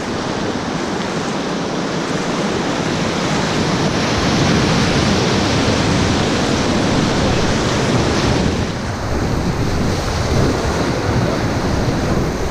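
Whitewater of a Ganges rapid rushing and splashing loudly around a raft, mixed with wind buffeting the microphone. The hiss eases slightly about two-thirds of the way through.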